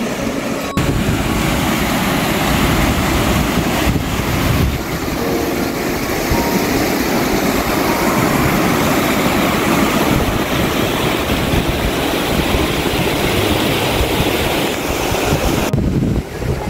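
A fast-flowing mountain stream rushing, a steady loud wash of water noise that comes in suddenly about a second in.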